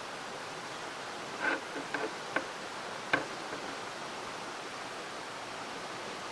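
Steady hiss with a handful of short clicks and light knocks in the middle, as the steel beam of a steelyard scale is handled and wiped with an oily cloth.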